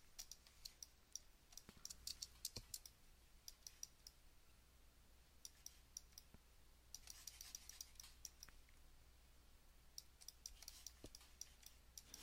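Faint computer mouse clicks and keyboard taps, coming irregularly in small clusters over a low steady hum.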